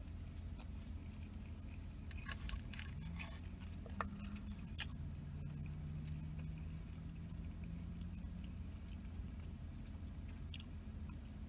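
A person chewing a mouthful of fried rice, with a few soft clicks from a spoon and chopsticks against the takeout containers. A steady low hum runs underneath.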